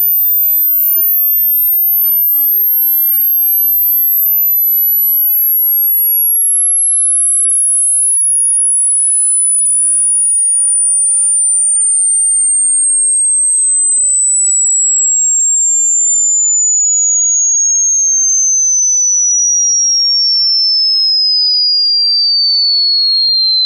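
A hearing-test sine-wave sweep: one pure tone gliding slowly and steadily downward from near the upper limit of human hearing to a shrill high whistle, held at a steady loud level and cutting off suddenly at the end. The point at which a listener first hears it marks the upper limit of their high-pitch hearing.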